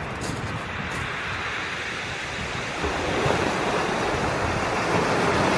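Waves breaking on a steep shingle beach: a steady rushing surf that swells louder about three seconds in.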